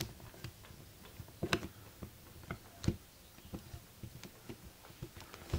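Scattered small clicks and taps, irregularly spaced, from a camera body being handled while a cleaning cloth is worked around its electronic viewfinder.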